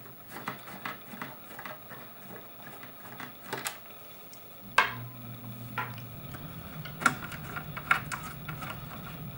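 Metal clicks, clacks and rattles of hard drives being worked out of the drive bays of a computer case. A low steady hum comes in about halfway.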